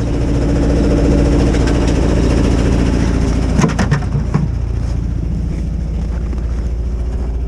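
An engine running steadily at idle, with a few short knocks about three and a half to four and a half seconds in.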